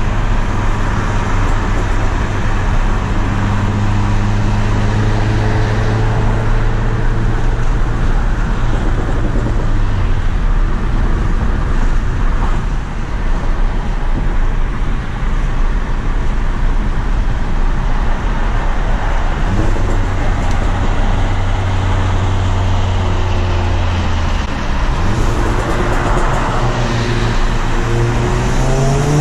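In-cabin sound of a tuned MK7 Volkswagen GTI's turbocharged 2.0-litre four-cylinder cruising at highway speed: a steady engine drone over tyre and road noise. Through the middle the engine drone drops away under the road noise, then comes back, and near the end the engine pitch climbs as the car accelerates.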